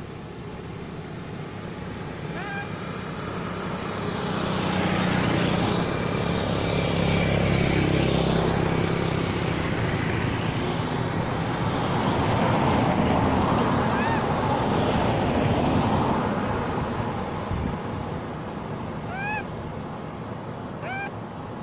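A vehicle passing by on the road, its noise swelling over several seconds and then fading. A few short, high, rising chirps sound near the end.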